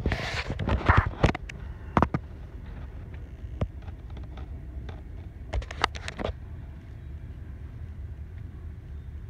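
Irregular clicks and knocks from a phone being handled and swung about, over a steady low rumble. The clicks bunch up in the first couple of seconds and again around the middle.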